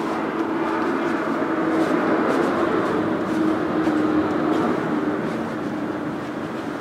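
Industrial lockstitch sewing machine motor running with a steady hum, with cloth rustling as the fabric is handled at the machine.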